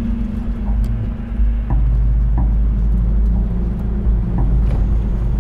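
Steady low rumble of a car driving along a road, heard from inside the cabin, with a low steady hum and a few faint ticks.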